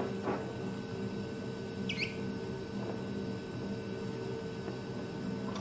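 Oxy-acetylene torch flame hissing steadily while a bronze brazing rod is fed into the joint, with one short high chirp about two seconds in.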